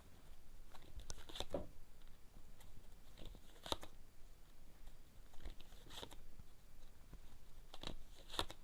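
Fortune-telling cards being handled on a table: faint, scattered soft clicks and rustles, coming in pairs about every two seconds, as cards are drawn and laid out.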